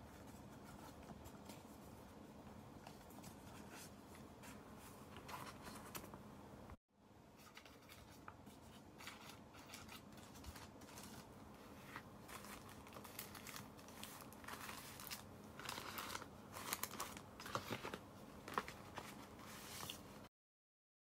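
Paper being handled: memo pads and envelopes rustling and crinkling, with many small crisp clicks and taps that grow busier in the second half. There is a brief break about seven seconds in, and the sound stops just after twenty seconds.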